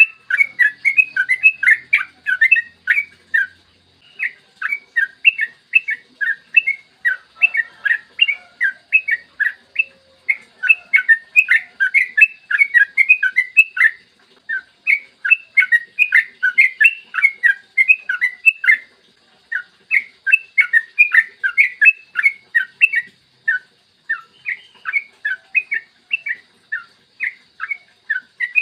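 Yellow-vented bulbul (trucukan) singing long, rapid runs of chirping notes, several notes a second. The phrases last a few seconds each, with short breaks between them.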